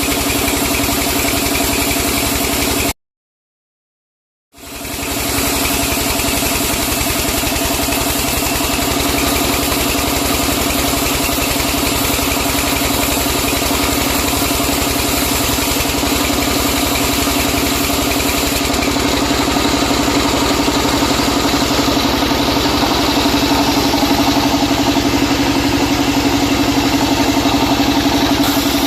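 Sawmill machinery running with a steady engine-like drone and no distinct cutting strokes. It cuts out completely about three seconds in and fades back in a second and a half later.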